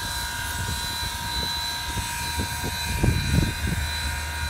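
Southern Railway 630, a 2-8-0 steam locomotive, idling loudly: several steady whining tones over a low rumble, with irregular low thumps.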